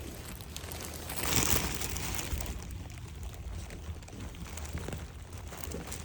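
Rustling and crinkling of loose stuff being shifted and handled, with a louder rustle about a second in, over a low steady rumble.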